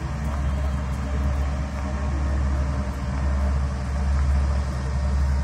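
Passenger hovercraft skimming across the water: a steady low drone from its engines and propellers.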